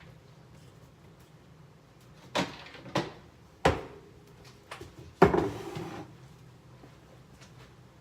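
Knocks and clunks of food containers and items being handled and set down while a refrigerator is emptied, about four separate knocks with a couple of light taps between; the loudest comes about five seconds in, followed by a brief rattle.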